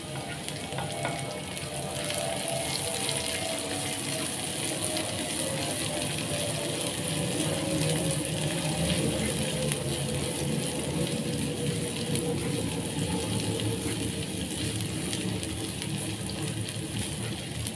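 Garlic and shallots frying in hot cooking oil in a pan, a steady sizzle with a fine crackle, under faint background music.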